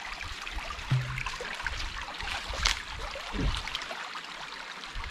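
Stream water running over rocks, a steady rush, with a few low thumps.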